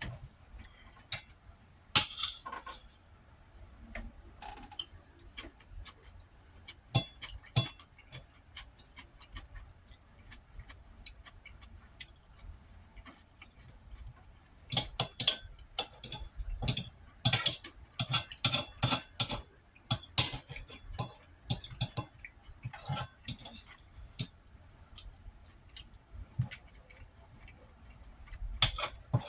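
Eating utensil clinking and scraping against a dish: a run of short sharp clicks, scattered at first and coming thick and fast about halfway through.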